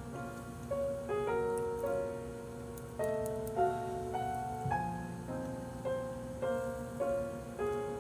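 Soft background piano music: a slow melody over chords, with a new note or chord about every half second to a second.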